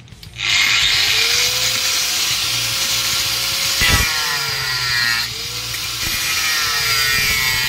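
A small handheld power tool's motor running continuously, its whine sagging and recovering in pitch, with one sharp knock about midway. It is being used to free a part the worker reckons is thread-locked.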